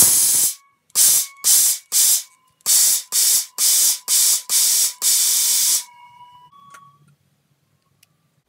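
Homemade glue-spraying web shooter firing about ten short, loud hissing spurts of glue web in quick succession over six seconds, with a faint steady whine under them.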